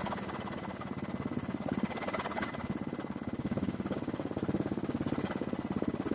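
Aircraft noise heard from on board: a steady engine drone with a fast, even pulsing beat.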